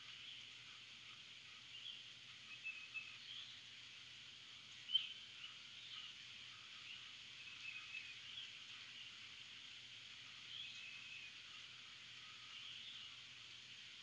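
Birds chirping, short repeated calls over a steady hiss of rain, with one louder, sharper chirp about five seconds in.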